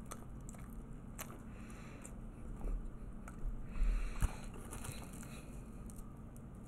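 A person chewing food close to the microphone, with small clicks and a few low bumps around the middle; the loudest is a sharp knock about four seconds in.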